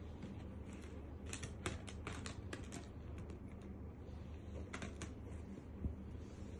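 A run of quick, light clicks and taps, about a dozen between one and three seconds in and three more near five seconds, over a faint steady low hum.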